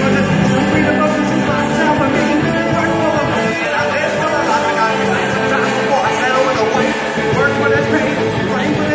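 Live rock band playing loud and dense: electric guitars, bass and drums, with a vocalist singing over them.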